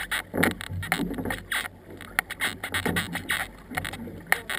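Canoe paddles stroking through the water: repeated splashing pulls about once a second, mixed with sharp clicks and knocks of paddles and gear against the hull.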